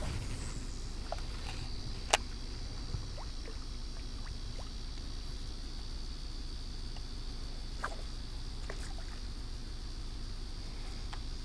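Steady high-pitched insect drone over a low rumble of pond-side ambience, with a single sharp click about two seconds in and a few faint ticks.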